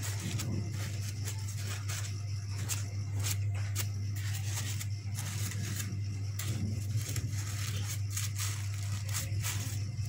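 Crepe paper rustling and crinkling as it is handled, with scattered short clicks and scrapes, over a steady low hum.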